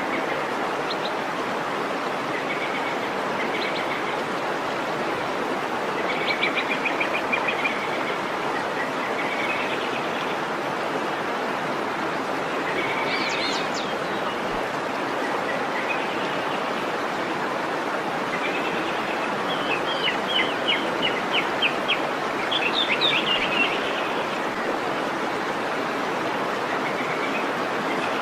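Waterfall rushing steadily, with small birds chirping in short, rapid trills several times, loudest about 20 to 23 seconds in.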